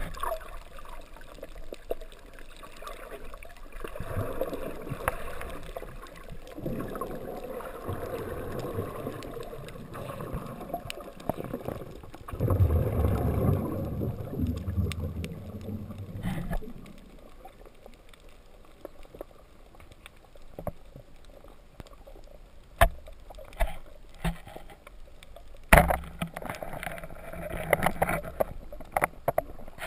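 Muffled underwater noise picked up through a waterproof camera housing: irregular gurgling and rushing of water, loudest about halfway through. In the second half come a few sharp knocks and clicks.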